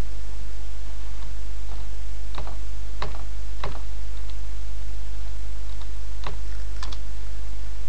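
Computer keyboard keys pressed one at a time: about six or seven separate, irregularly spaced clicks between about two and seven seconds in, as a password is typed. A steady low hum runs underneath.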